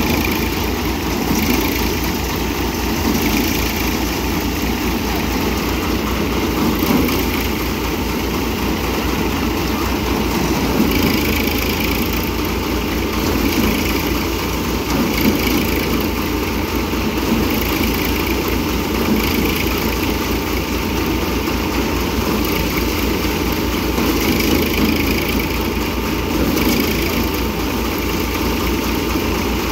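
Tractor-driven Dasmesh paddy thresher running steadily while bundles of paddy are fed into it, the tractor's diesel engine holding a constant working speed under the load of the threshing drum.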